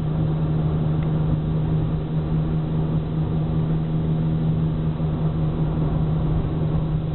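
Car driving at a steady speed, heard from inside the cabin: a constant low engine drone under even road and tyre noise.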